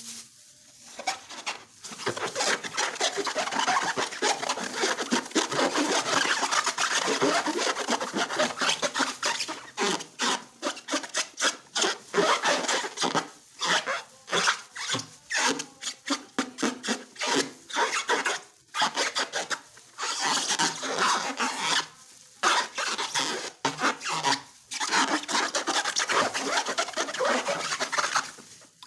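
Rasping, rubbing noise from handling slime-making materials and balloons, in a dense run of irregular strokes broken by short pauses.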